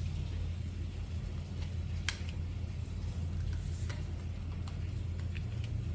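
A steady low hum, with a few faint clicks and taps of tarot cards being drawn and laid down, one about two seconds in and another near four seconds.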